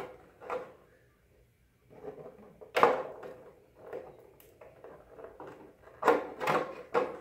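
Thin ABS plastic helmet shell pieces being handled and pressed together: a run of irregular hollow plastic knocks, rubs and creaks, the loudest a little under three seconds in and several more close together from about six seconds in.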